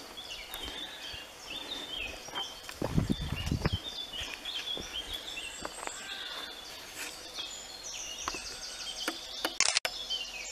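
Woodland birds singing, many short chirping calls overlapping throughout. Footsteps rustle on dry leaf litter about three seconds in, and a sharp noise with a momentary cut-out in the sound comes near the end.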